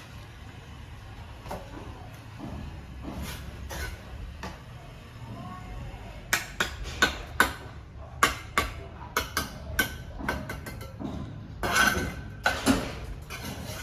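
Tool strikes on brick or masonry: a few faint knocks, then from about six seconds in a quick, irregular run of sharp knocks, some closely spaced, over a low steady background hum.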